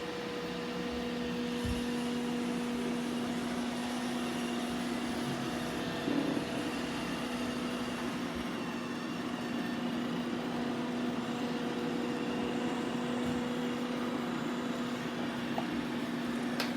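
Robot vacuums running over a rug: a steady whirring with a steady hum that sets in just after the start. One robot vacuum is making a weird noise, which the owners put down to its full dustbin.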